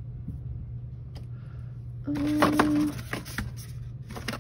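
Small plastic bottles of hair colour clicking and knocking against a clear acrylic shelf holder as they are handled, over a steady low hum of the room. About two seconds in, a short steady tone lasting under a second rises over the clicks.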